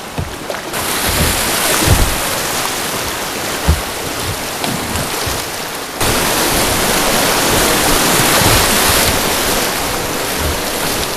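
Loud rushing of fast floodwater through a river rapid, with wind buffeting the microphone and a few low bumps. The rush gets suddenly louder about six seconds in.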